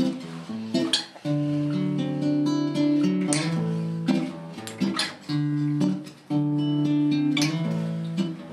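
Acoustic guitar strumming chords in a steady pattern, each chord ringing on until the next stroke.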